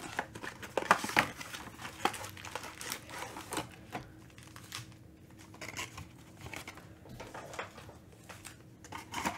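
A cardboard trading-card hobby box is opened by hand, and its foil-wrapped card packs are pulled out and set down. It makes a run of irregular crinkles and light taps, busiest in the first few seconds.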